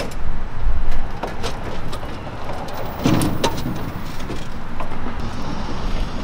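Metal clanks and rattles of a loaded hand truck and a chained pickup liftgate as a heavy vending machine is worked onto the gate. There is a heavier thud-like knock about three seconds in, over a steady low rumble.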